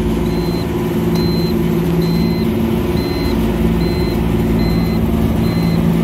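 Steady machinery hum of a running supermarket refrigeration condensing unit, with a short high electronic beep repeating a little faster than once a second.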